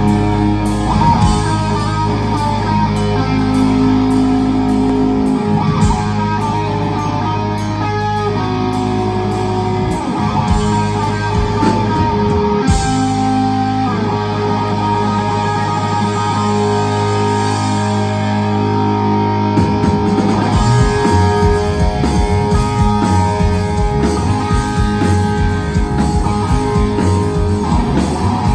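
Live rock band playing an instrumental passage on distorted electric guitar, bass guitar and drums, with held guitar notes at first; the drums settle into a steady, dense beat about twenty seconds in.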